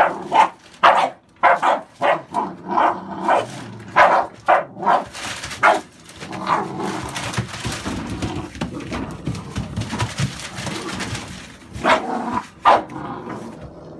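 American Staffordshire bully puppies play-barking while they wrestle: short sharp barks about two a second, then a rougher stretch of scuffling and low noise, then two more barks near the end.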